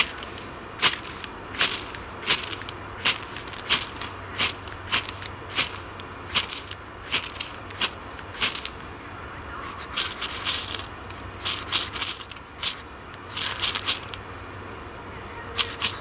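Ferro rod (fire steel) struck with a knife spine to shower sparks onto fine wood shavings, a sharp scrape a little more than once a second. From about ten seconds in the strikes come in quicker, rasping runs.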